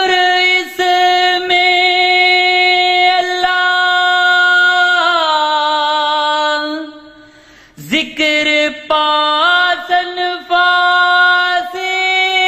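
A man singing a Punjabi Sufi kalam unaccompanied, holding long drawn-out notes on a steady pitch. About halfway through, his voice slides down and fades out. After a breath he comes back in with a rising swoop and holds the note again.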